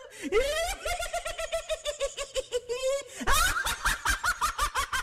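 A high-pitched voice cackling with laughter: rapid ha-ha pulses, about eight a second, with a rising whoop near the start and again about three seconds in.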